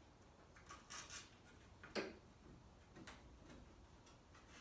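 Faint, scattered clicks and taps of small metal parts and hand tools being handled while the car's cowl screws and fittings are worked loose. There are a few light clicks about a second in and one sharper click about two seconds in.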